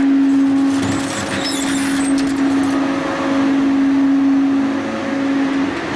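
Shark 1100 hydraulic scrap shear working a load of scrap rebar: a steady machine hum from its hydraulic power unit, easing off shortly before the end. About one to two and a half seconds in, the steel bars scrape and crackle as the press plate squeezes them down.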